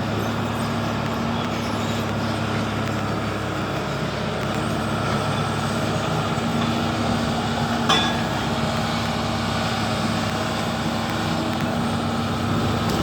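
Kobelco SK170LC-10 excavator's diesel engine running at a steady speed, with one brief sharp click partway through.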